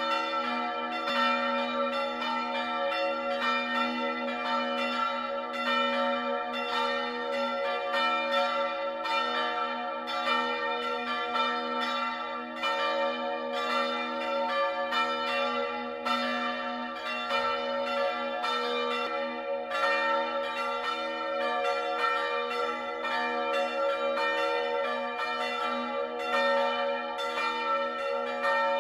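Bells ringing in a continuous peal, struck two or three times a second, their tones ringing on and overlapping.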